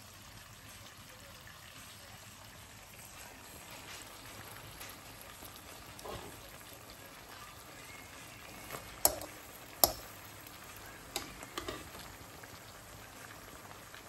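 Faint steady sizzle of porcini mushrooms frying in a pan, with a few sharp knocks of utensils against the pan about two-thirds of the way in.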